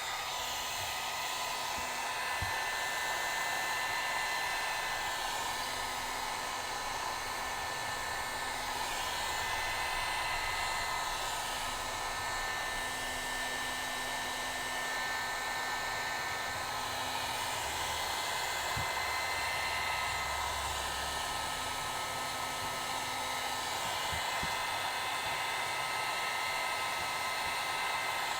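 Hot air gun blowing steadily: an even rush of air with a faint whine, heating the phone to soften the adhesive holding its cracked screen.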